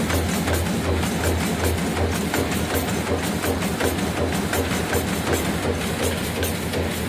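PY-950 roll-fed die-cutting machine running at speed, its press cycling in a steady rhythm of about three strokes a second as it cuts paper-plate blanks from the paper web.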